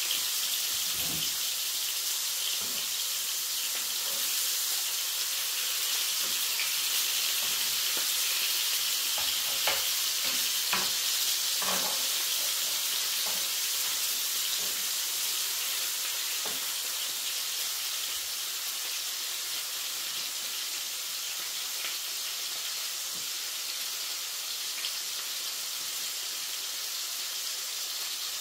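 Minced-lamb kebab patties sizzling in a frying pan, a steady frying hiss that eases slightly in the second half. A few light clicks of a knife and fork against the pan come near the middle as the patties are turned.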